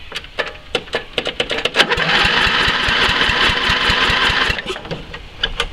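A few clicks, then the electric starter cranks the Toro Wheel Horse 1232XL's 12 hp cast-iron engine for about two and a half seconds in a quick, even chug, and stops without the engine catching.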